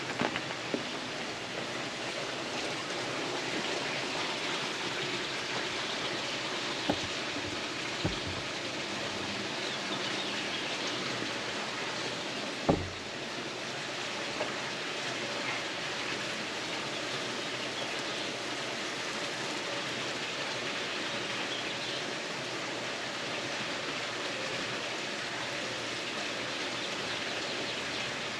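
A small fire of pine needles and charred punk wood burning with a steady fine crackle, lit from the sparks of an empty Bic lighter's flint wheel. A few short knocks stand out, the loudest about 13 seconds in.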